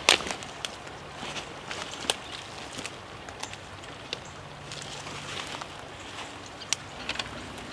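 A landing net with a softshell turtle in it being lifted and handled: scattered sharp clicks and light rustling of the net, with a few footsteps on dirt.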